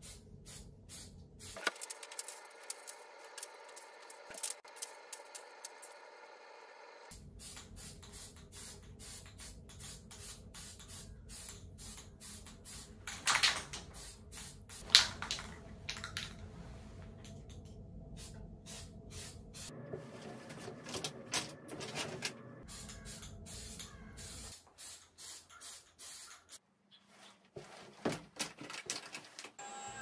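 Aerosol spray paint can spraying black paint in many short bursts onto a galvanized sheet-metal panel, with a few louder knocks in the middle.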